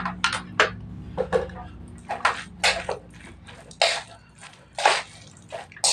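Close-up eating sounds of mie tek-tek fried noodles being slurped and chewed: wet smacking and squishing in short, irregular bursts, a few every second.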